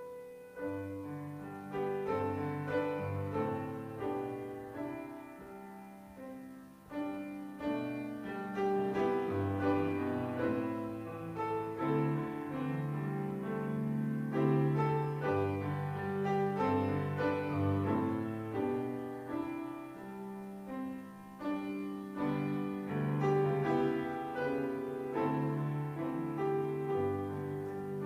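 Piano playing slow, chord-based instrumental music. Its low bass notes ring on under the chords above.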